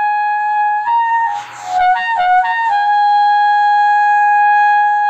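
Trumpet playing the high A with valves 1 and 2 down. The note holds, then cracks and wavers between pitches for about a second and a half near the middle, then settles into a long steady held high A.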